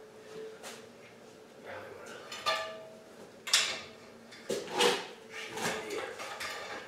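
A deer hide being pulled down by hand and torn away from the hanging carcass: three sharp tearing sounds about a second apart, the first about two and a half seconds in, then smaller ones.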